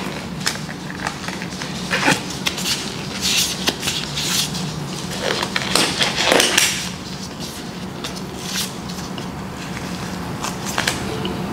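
Black disposable gloves being pulled on and tugged into place over the hands: rubbery rustling with scattered snaps and crinkles.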